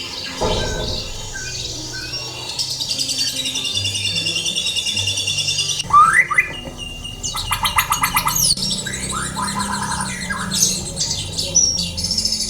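Songbirds singing a varied song: long rapid trills, quick rising whistles and a buzzy rattle about seven seconds in. Soft background music with low sustained notes runs underneath.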